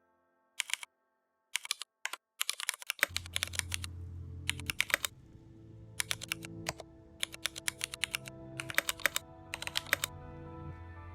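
Typing on a computer keyboard: quick runs of keystrokes in short bursts with pauses between them. Soft background music comes in about three seconds in.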